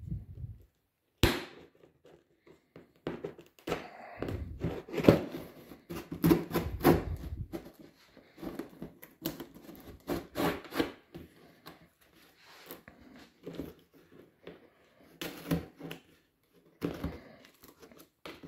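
Packing tape slit with a small knife and torn off a cardboard box, with irregular scraping, rustling and knocks of the cardboard; a sharp knock about a second in.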